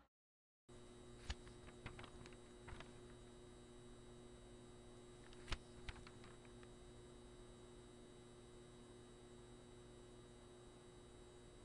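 Near silence: a steady low electrical hum of room tone, with a few faint sharp clicks, the loudest about five and a half seconds in.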